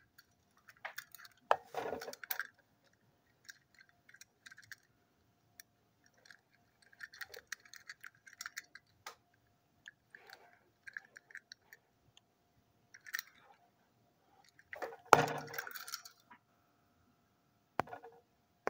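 Small toys handled by hand close to the microphone: scattered light clicks, rattles and clinks, with a louder knock about fifteen seconds in. A faint steady hum runs underneath.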